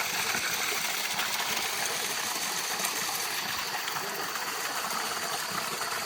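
Steady rush of flowing water, like a forest stream, an even hiss with no separate splashes.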